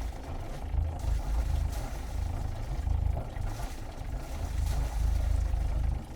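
Sailboat's inboard diesel engine running, heard from outside the hull: a heavy low rumble, with the wet exhaust splattering water in uneven surges of hiss.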